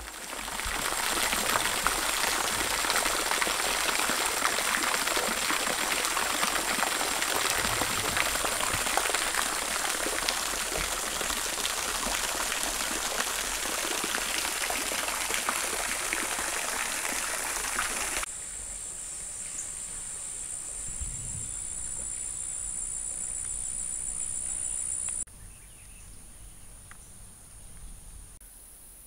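Water running steadily. After an abrupt drop in level about two-thirds of the way through, a steady high-pitched insect drone is heard over quieter outdoor background.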